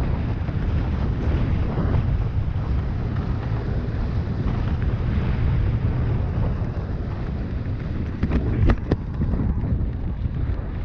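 Wind buffeting the microphone of a camera moving fast along a dirt trail: a steady low rushing noise, with a few sharp knocks about eight to nine seconds in.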